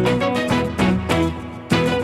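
Upbeat background music with plucked strings and a steady beat, briefly dipping in level near the end.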